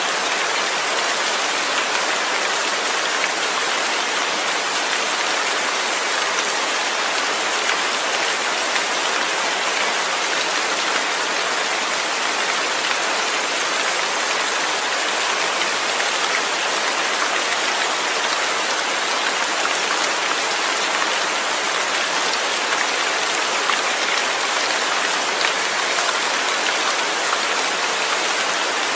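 Steady rain falling, an even hiss with many fine drop ticks and no change in intensity.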